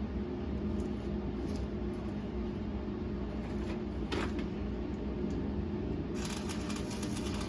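Steady machine hum, then about six seconds in a dense crackling hiss starts and keeps going, the sound of a welding arc being struck and run.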